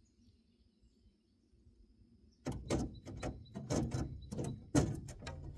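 Quiet at first, then from just under halfway in, a run of irregular sharp clicks and rattles from a fishing rod and reel being worked.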